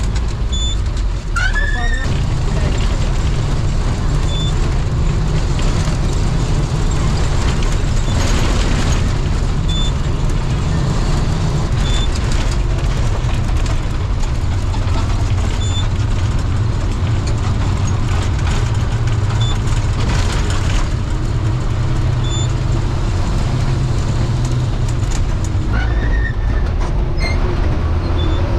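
Bus engine and road noise heard from inside the cabin: a steady low rumble while driving.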